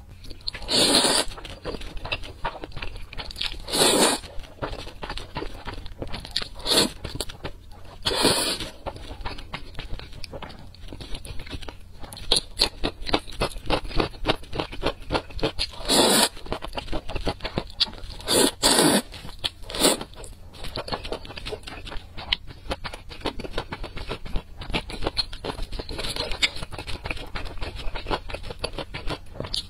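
Close-miked eating of saucy black noodles: several loud slurps a few seconds apart, with wet chewing and mouth clicks between them.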